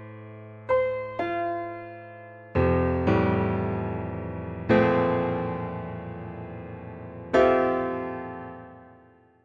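Slow background piano music: a handful of sustained chords, each struck and left to ring, the last one fading away near the end.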